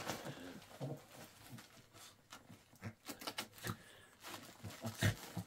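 Wrapping paper crinkling and tearing as a shih tzu paws and bites at a torn present, in scattered short rustles, the loudest about five seconds in.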